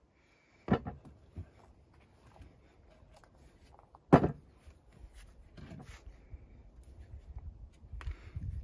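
Lengths of timber knocked against a wooden workbench as they are handled: a thump under a second in and a louder one about four seconds in, with low rumbling handling noise near the end.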